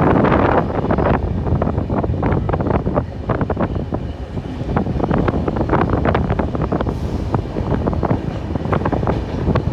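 Moving train: a dense, irregular clatter and rattle of wheels and carriage running over the track, with wind rushing over the microphone.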